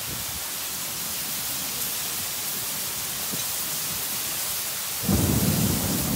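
Heavy rain hissing steadily. About five seconds in, a loud low rumble of thunder starts suddenly and keeps going over the rain.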